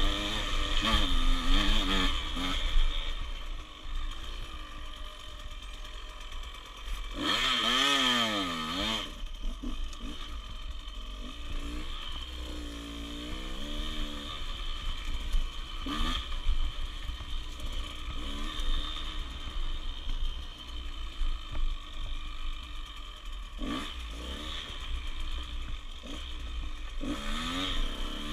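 Small dirt bike engine running while ridden, its revs rising and falling, with a loud surge of revs about eight seconds in and smaller ones later. A steady low rumble of wind on the microphone lies underneath.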